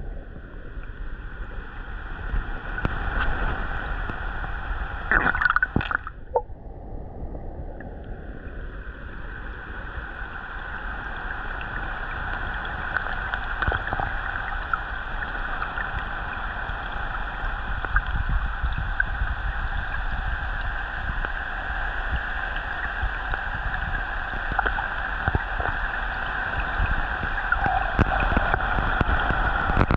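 Steady rushing water, with a short burst of louder noise about five seconds in.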